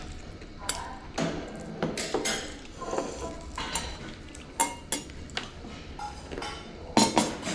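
Cutlery clinking and scraping against dishes and bowls during a meal, in irregular sharp clinks, with a louder cluster of clinks near the end.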